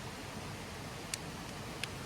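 Campfire of burning wood crackling: two sharp pops, one about a second in and another near the end, over a steady hiss.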